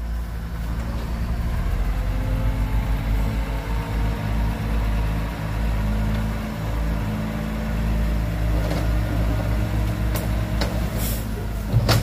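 Heavy diesel engine of earthmoving machinery running steadily at a low pitch, with a few short sharp hisses near the end and a low thump just before it ends.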